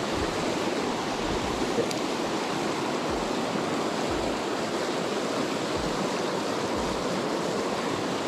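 River water rushing steadily, an even, unbroken wash of flowing-water noise.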